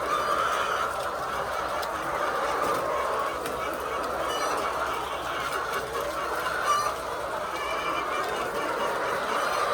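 A flock of laying hens clucking together in a continuous chatter, with a few louder single calls standing out now and then.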